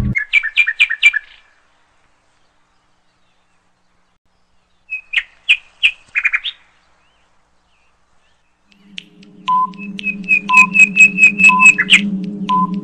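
Quiz-game sound effects: quick runs of short, bird-like chirps, then from about nine seconds in a steady low hum with a short beep about once a second as a countdown timer ticks down.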